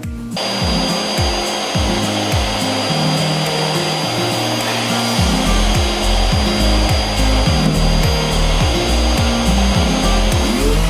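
Dust-extraction vacuums and an electric sander switching on just after the start and running steadily: a loud, even rush of air with a high whine, over background music with a steady beat.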